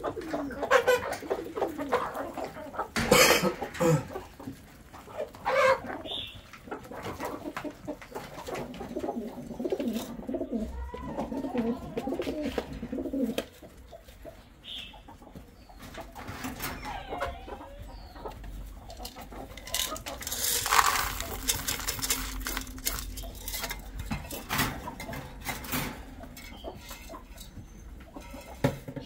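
Domestic chickens clucking and pigeons cooing, with scattered knocks and a loud rustling noise for about two seconds, about two-thirds of the way through.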